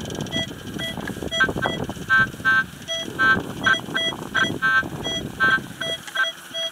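Minelab CTX 3030 metal detector giving short, repeated target beeps, about two to three a second, as the coil sweeps back and forth over a buried target. The target reads 11-37, which the hunter takes for another shell. A low rustle runs under the beeps and stops about six seconds in.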